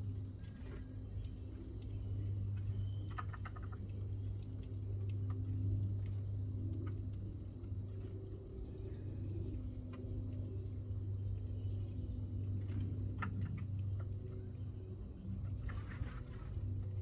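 Backyard ambience at a bird feeder: a steady low hum under a continuous high, even whine, with a few faint short bird chirps and scattered light clicks.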